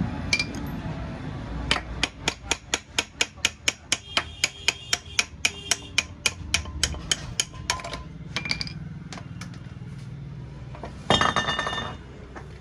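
A hammer striking metal in a rapid series of ringing blows, about three a second, during work on a motorcycle's rear wheel. A few lighter knocks follow, then a short loud metallic clatter near the end.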